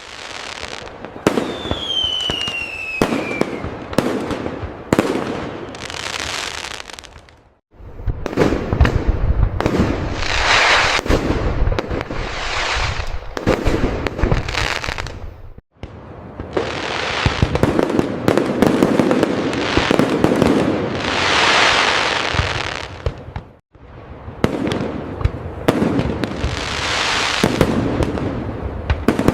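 Fireworks display: rapid booms and bangs with crackling bursts, and a falling whistle about two seconds in. The sound cuts out abruptly for a moment three times, at roughly eight-second intervals.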